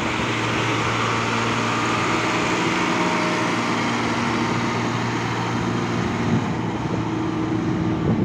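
A loaded Tata tipper truck's diesel engine running steadily as the truck drives off on a dirt haul road, at an even, unchanging pitch.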